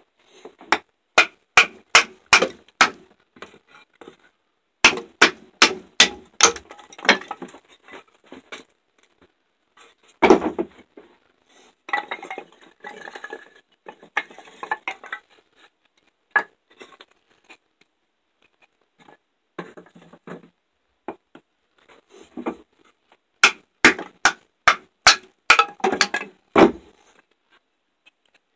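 Batoning: a wooden baton knocks on the spine of an MTech fixed-blade knife, driving it down through a board, in quick runs of three or four sharp blows a second. A single heavier thump comes about ten seconds in, followed by a few seconds of scraping and rustling of wood.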